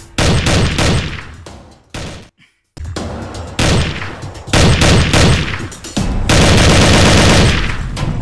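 Automatic rifle fire in several bursts, with a short break about two seconds in and a long continuous burst of rapid shots near the end.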